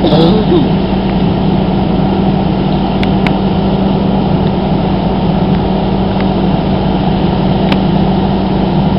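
Steady engine drone with a constant hum, as of a fire engine running at the scene. A short wavering sound comes right at the start and a few faint clicks follow.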